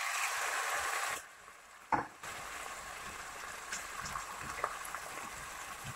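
Chicken liver sizzling in oil in a frying pan over low heat: a steady hiss with a few faint crackles, louder for about the first second. A single knock about two seconds in.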